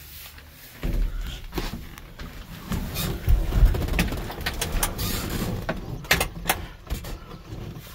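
Handling noise while someone moves about in an old pickup's cab: irregular rustling with a low rumble and many small clicks and knocks. It starts about a second in and is loudest around the middle.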